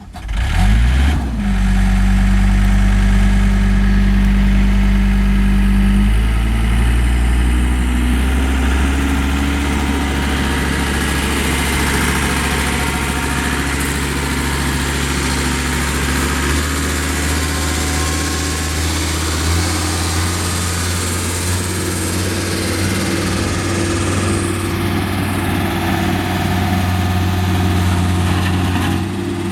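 Diesel engine of a John Deere CT332 compact track loader coming up to speed in the first second, then running steadily, with the engine speed raised in a few steps.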